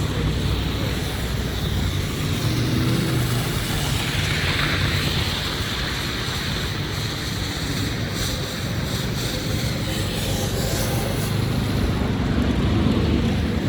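Steady rushing noise of blizzard wind on the microphone over a continuous low rumble of city traffic.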